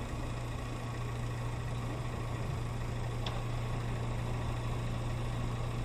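Steady low engine hum heard inside a vehicle cabin through a dashcam microphone, with one faint click about three seconds in.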